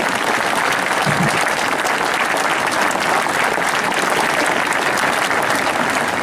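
A large crowd applauding, a dense, steady clapping.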